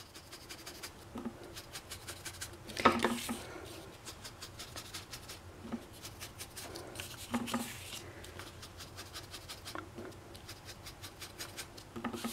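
Sponge dauber dabbed quickly and repeatedly on cardstock, a run of soft taps several a second, pouncing ink over a paper mask. There are a couple of louder bumps about three and seven seconds in.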